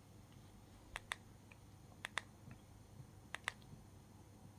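Faint pairs of sharp clicks, three times about a second apart: a small push button being pressed and released.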